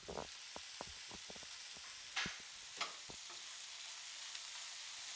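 Sliced carrots, green peppers and onions sizzling in a frying pan, with a spatula scraping and clicking against the pan as they are stirred. The sizzle is a steady hiss, and there are two louder scrapes about two seconds in and just before three seconds.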